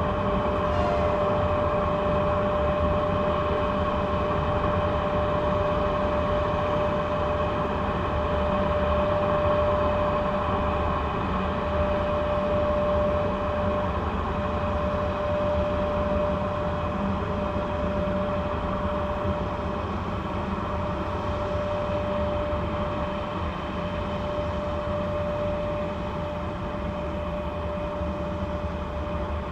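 Cooling fans of a 2ES5K 'Ermak' electric locomotive running, a steady whine with a single held tone over a low rumble, easing off slightly toward the end.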